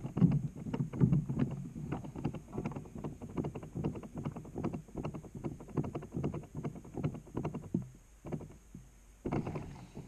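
Washing machine drum turning with water sloshing and wet laundry tumbling, heard from inside the drum, with irregular knocks and thuds as the load falls. It eases off near the end, then starts up again with a louder knock.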